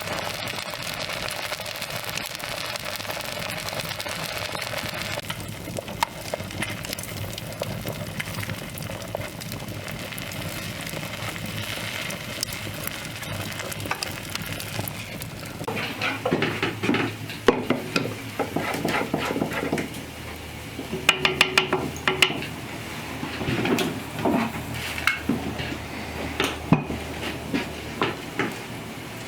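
Kitchen cooking sounds: a steady sizzle at first, then a utensil stirring, scraping and clinking against cookware in a busy run of clinks through the second half, one of them briefly ringing.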